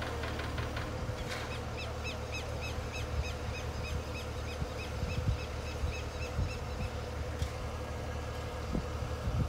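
Truck-mounted crane's engine running steadily at a low hum. Over it, a bird calls in a quick series of short, falling chirps, about three a second, from about a second in until near the end.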